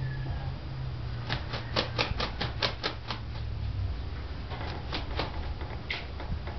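A rapid run of about ten sharp clicks, roughly five a second, then a few scattered clicks, over a low steady hum.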